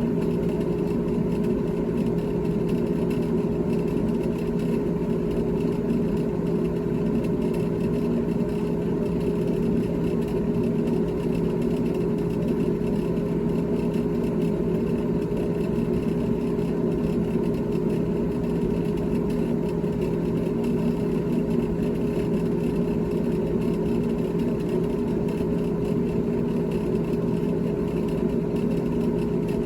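GE GTH18XCTZRBB refrigerator running, a steady mechanical hum with a few fixed tones held throughout.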